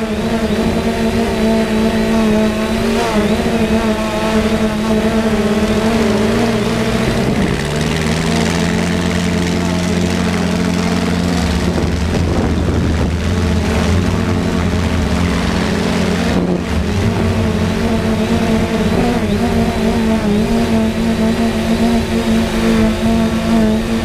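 Quadcopter drone's motors and propellers whirring steadily, their pitch shifting about seven seconds in as the drone changes speed.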